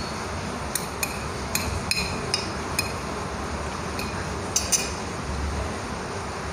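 Metal fork clinking against a plate while fried instant noodles are eaten: a run of light, ringing clinks over the first five seconds, the last two close together.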